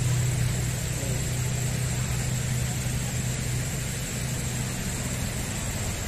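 Steady low rumble of nearby road traffic with an even hiss and a thin, steady high whine over it.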